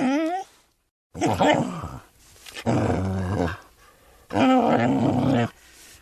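Dog vocalizing: a short wavering whine, then three deep, drawn-out calls about a second each with short pauses between.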